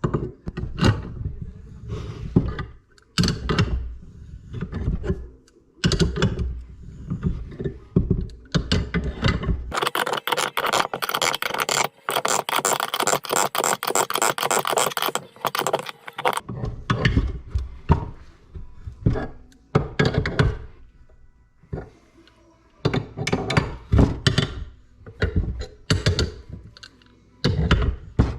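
Metal engine parts being handled and set down during assembly: repeated clunks, knocks and clinks of tools and parts on the engine case and bench. About ten seconds in, a steady rasping noise runs for some six seconds before the clunking resumes.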